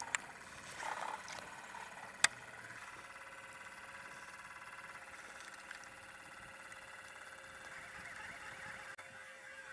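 Baitcasting reel retrieving a chatterbait: a sharp click about two seconds in, then the steady gear whir of the reel being cranked, which stops shortly before the end.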